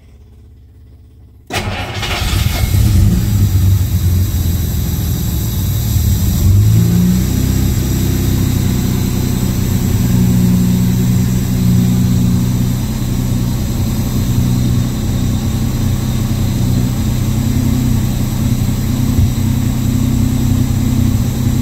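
Jaguar XJ6 Series 1's XK straight-six engine catching and starting about a second and a half in, heard from inside the cabin. The engine speed rises around six seconds in, and it then runs steadily. The owner says its carburettors still need retuning.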